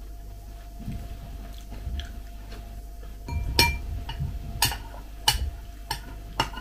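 Metal spoon stirring kefir in a glass bowl, clinking sharply against the glass about five times in the second half, with soft chewing and mouth sounds before that.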